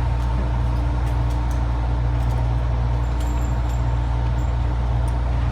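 Steady low mechanical rumble with a constant faint hum and no gunshots.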